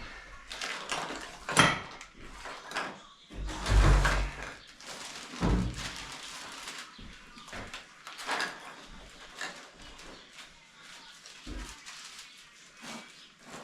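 Knocks, bumps and clatter of shower-unit parts being handled and fitted, with a heavy thump about four seconds in and sharper knocks near one and a half, five and a half and eight seconds.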